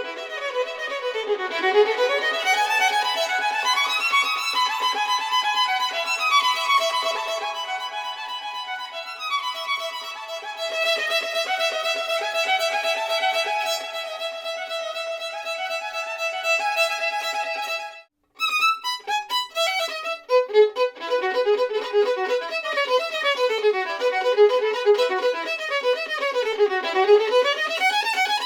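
Solo violin playing flowing passages that sweep up and down across the strings in arpeggio-like figures. The sound cuts out for a moment about two-thirds of the way through, then the playing resumes.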